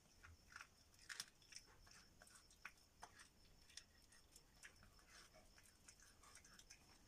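A cat chewing on a rat it has caught: faint, irregular crunching and clicking bites.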